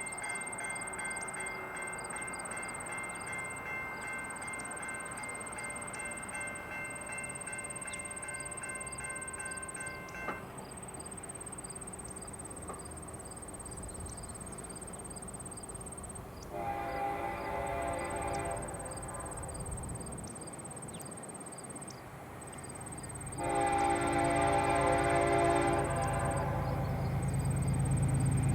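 Freight train horn sounding two long blasts for a grade crossing, with a third starting near the end, while the low rumble of the approaching diesel locomotives grows louder. Early on a steadier high tone fades out about ten seconds in, over a faint repeated ringing.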